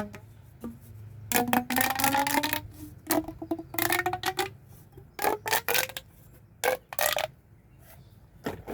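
Plastic pop tubes (corrugated fidget tubes) being pulled and pushed: two bursts of fast crackling pops, each with a rising tone. A few separate sharp clicks follow.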